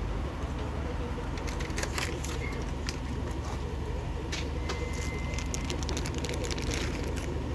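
Scattered light clicks and crackles of small parts being handled, over a steady low rumble.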